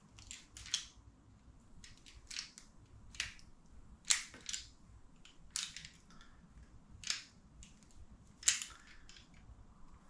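Hand crimping tool clicking and crunching as it squeezes small 2.8 mm crimp terminals onto thin wire ends, about a dozen irregular sharp clicks.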